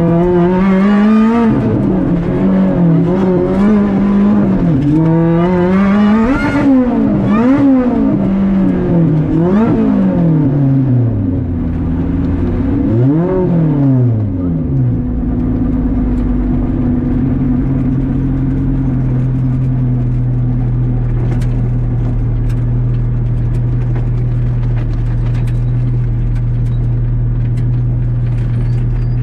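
Rally car's engine heard from inside the cabin, revving hard up and down through the gears for about the first half. It then settles to a steady, even note for the rest.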